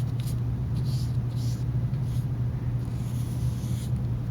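Soft, irregular swishes of a paintbrush laying tempera paint on paper, over a steady low hum.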